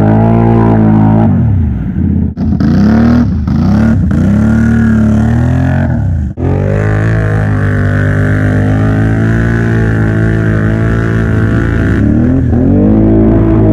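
Can-Am Outlander XMR 570 ATV V-twin engines revving hard while pushing through deep mud, the revs rising and falling repeatedly with two brief drops in the first half, then holding steadier.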